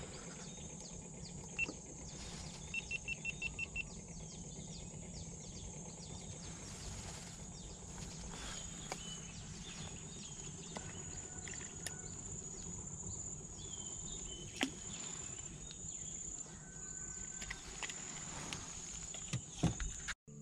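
Quiet riverside ambience: a steady high insect drone over a low hum, with scattered small clicks and knocks. About three seconds in there is a brief run of about seven quick high ticks.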